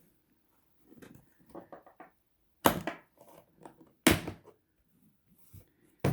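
Hard plastic pistol case being handled and opened: two sharp clacks about a second and a half apart, with smaller knocks and rattles between.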